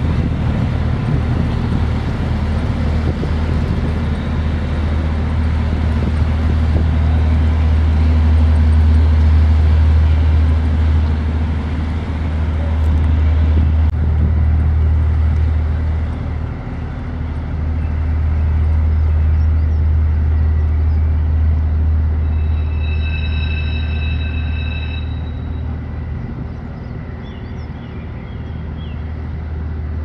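Ship diesel engines running with a loud, steady low drone. Brief high bird calls sound faintly near the end.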